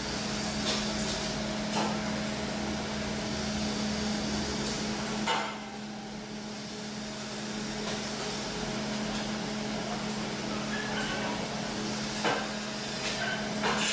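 Welded square steel tube frame of a folding ladder-chair knocking and clanking as it is folded between chair and step-ladder positions. There are a few sharp metal knocks, the loudest about five seconds in and several close together near the end, over a steady low hum.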